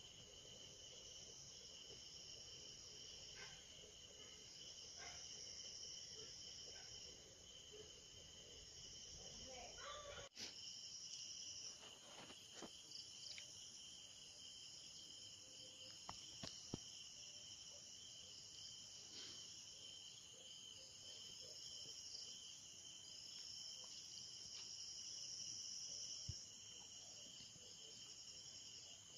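Faint steady chirring of insects in the background, with a few soft knocks and rustles; the background changes abruptly about ten seconds in.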